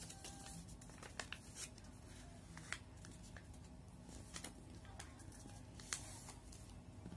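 Origami paper being folded and creased by hand: faint, scattered crinkles and short paper clicks, about one every half second to second.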